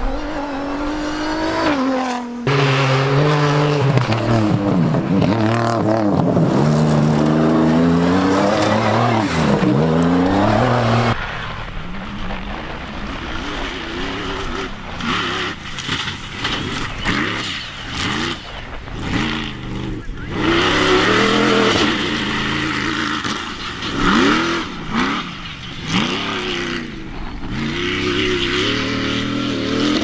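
Toyota Hilux rally-raid race truck driven hard on a dirt track, its engine note repeatedly climbing and dropping through shifts and throttle lifts. About eleven seconds in it cuts to a rally-raid buggy running past, its engine revving up and down in quick swells over rough ground.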